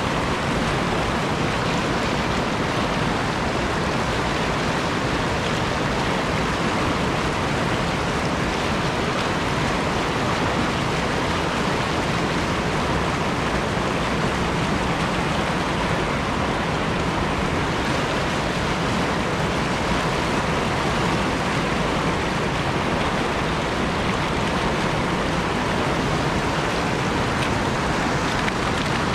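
Fast mountain trout stream rushing over rocks and through whitewater riffles, a loud, steady rush of water with no pauses or changes.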